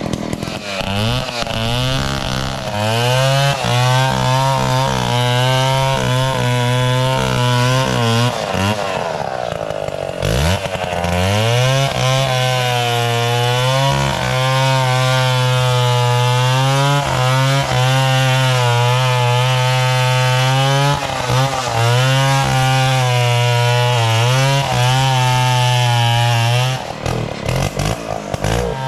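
Two-stroke chainsaw running at high revs, its pitch wavering as the chain works under load. About nine seconds in the engine drops off and then revs back up, and it dips briefly again near the end.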